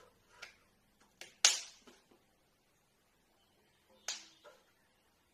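Hands slapping and clapping together as a person signs, a few short sharp smacks with quiet between, the loudest about a second and a half in and another just after four seconds.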